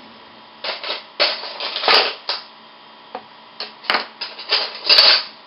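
Handling noise in a kitchen: two spells of rustling and scraping, each with a sharp click or knock, the second spell ending a little before the close.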